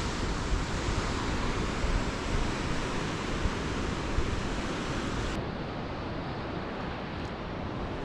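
Wind gusting over the microphone, a fluctuating low rumble over a steady hiss of sea surf breaking on rocks below. About five seconds in the sound turns suddenly duller as the high hiss drops away.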